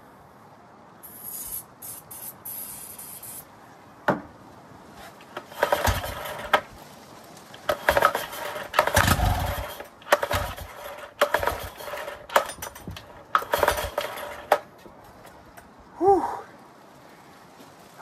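Yamaha 9.9 hp four-stroke outboard being cranked with its recoil pull-starter: a short hiss of starting spray, then several hard pulls that turn the engine over without it catching. This is a sign of fuel starvation, with no fuel getting to the carburettor. A bird calls once near the end.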